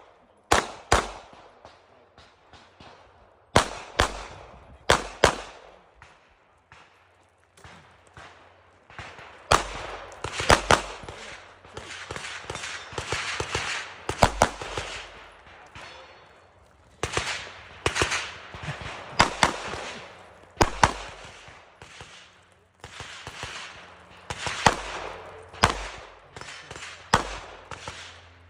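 Pistol shots fired in quick strings on a competition shooting stage: doubles and rapid runs of shots with short pauses between the groups, each shot trailing a short echo.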